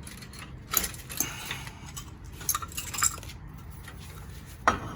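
Metal clinking and knocking as a disc brake caliper and its loose brake pads are handled and fitted over the rotor: several separate sharp clinks, the loudest near the end.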